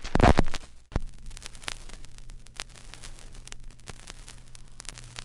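A loud burst of noise at the start, then scattered crackling clicks over faint hiss and a steady low hum, like static or old-recording crackle.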